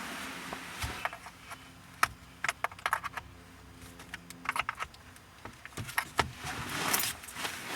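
Light metallic clicks and rattles from hands and a pin working at the steering wheel's airbag release clips, with a few sharp ticks and a couple of short rustles, one right at the start and a longer one near the end.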